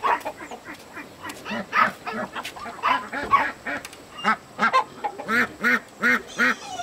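A flock of domestic ducks quacking again and again, in short calls that come in quick runs and grow more regular in the second half.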